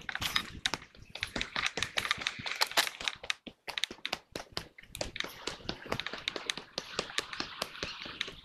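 Footsteps crunching on gravel-filled timber steps while climbing: a dense, irregular run of sharp crackles and clicks.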